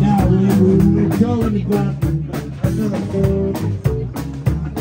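Live rock band playing: electric guitar over a steady drum beat of about four hits a second, with bass underneath.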